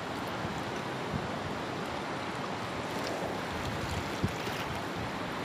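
Steady rush of a fast-flowing river, with a single short knock about four seconds in.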